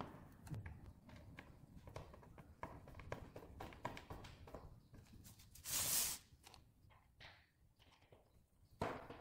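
Crosshead screwdriver turned by hand, driving cam pins into pre-drilled holes in a chipboard panel: faint, irregular clicks and ticks of the bit and threads, with a louder brief noise about six seconds in and another near the end.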